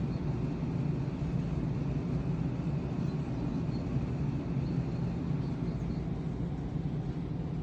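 A steady low hum or drone of background noise with no distinct events.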